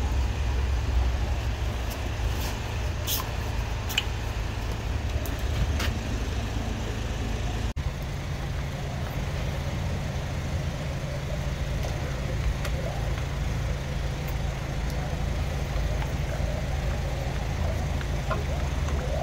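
Drain jetting machine's engine running steadily, driving the high-pressure hose working down a rodding eye, with a few light clicks in the first half.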